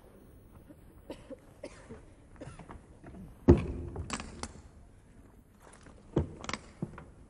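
Footsteps and scattered knocks of a performer moving across a stage and climbing onto a stack of prop boxes, with a sharp thump about three and a half seconds in and another about six seconds in.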